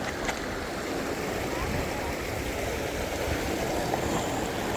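Creek water running over rocks: a steady rushing noise.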